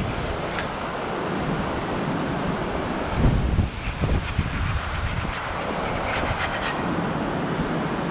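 Steady rush of breaking ocean surf with wind on the microphone, buffeting hard about three seconds in. A few light scratchy strokes of surf wax rubbed onto a foam surfboard deck near the end.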